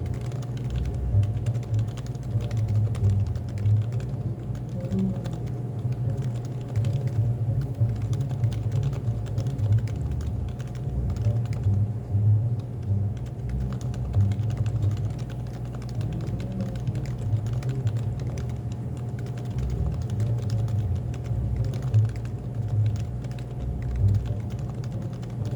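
Continuous fast typing on a Happy Hacking Keyboard (HHKB), a dense run of key clicks with no pauses. Under it runs a steady low background hum with faint music.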